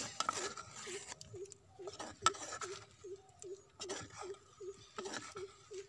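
A spoon scraping and clinking against a clay bowl and wooden mortar as pounded lovi chutney is scooped out, in scattered short clicks. A short chirp repeats evenly in the background, about two and a half times a second.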